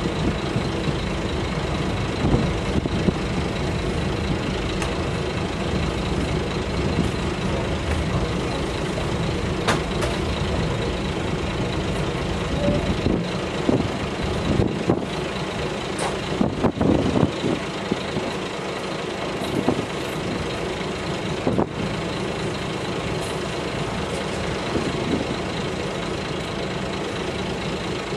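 Kashima Rinkai Railway 6000 series diesel railcar under way, heard from inside the passenger cabin: the diesel engine and the wheels on the rails make a steady running noise. A few sharp clicks and knocks stand out around the middle.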